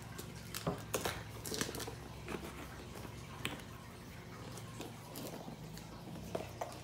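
Cardboard laptop box being handled and its flaps opened: scattered short taps, scrapes and rustles of cardboard and packing tape.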